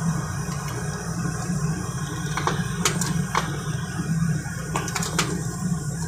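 Socket wrench turning the flywheel bolts tight: a handful of short metallic clicks and clinks at irregular moments, over a steady low hum.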